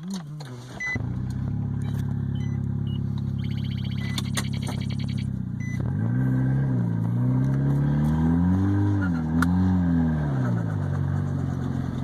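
Car engine running steadily, then revving up and down several times as the car is driven on. A couple of short electronic beeps sound near the start.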